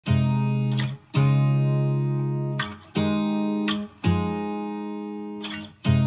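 Background music: a song intro of sustained chords, struck five times and each left to ring and slowly fade.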